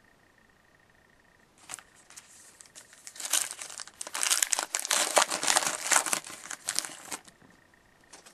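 A trading-card pack wrapper being torn open and crinkled by hand, a dense crackling that starts about a second and a half in and dies away shortly before the end.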